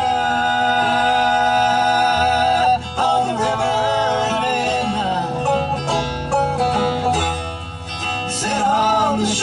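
Live bluegrass band playing a song, with banjo, mandolin, guitar and bass under male singing; a long held sung note fills the first few seconds before the melody moves on.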